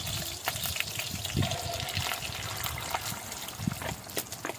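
Hot oil sizzling in a steel pot as beaten eggs are poured in from a plastic bowl, with a liquid gush and many sharp crackles.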